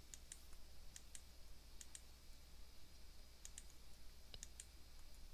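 Faint, scattered clicks of a computer mouse and keyboard as numbers are entered cell by cell, over a low steady hum.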